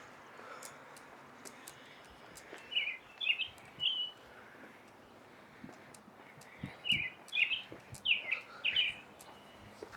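Small bird chirping in two clusters of short, quick notes, one a few seconds in and one in the second half, over a steady hiss of wind and distant traffic.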